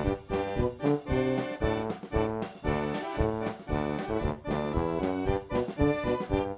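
Background music led by an accordion, playing a bouncy tune in an even rhythm.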